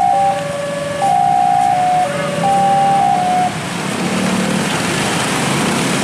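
Railway level-crossing alarm repeating a short electronic three-note chime, which stops about three and a half seconds in: the train has cleared and the barriers are about to lift. Motorcycle engines of the waiting traffic then grow louder.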